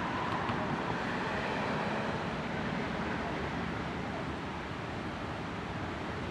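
Diesel locomotive hauling a passenger train slowly past, a steady rumble.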